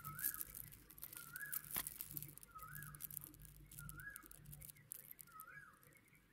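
Light clicking and tapping of a stone-chip bead bracelet and its metal toggle clasp being handled. Under it, a short whistled call that rises and then falls repeats about every second and a quarter.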